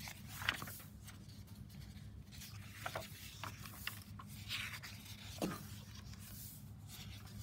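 Pages of a hardcover picture book being turned and smoothed flat by hand. The paper makes a few soft swishes and rustles over a low steady hum.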